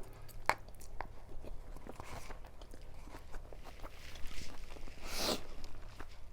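A person chewing and eating a mouthful of very spicy noodles: small wet mouth clicks and chewing noises, with a short rush of noise about five seconds in.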